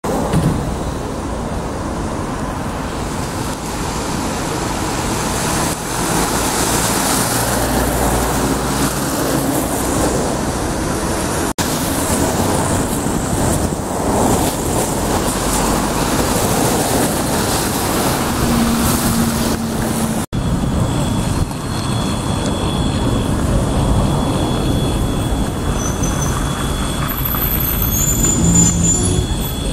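Buses running and road traffic noise, broken by two abrupt cuts.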